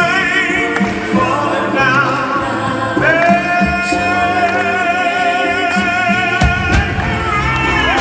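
A live band plays with several singers, a man and women, singing with heavy vibrato over drums and bass. About three seconds in, a singer holds one long high note for about four seconds. It is heard from out in the audience.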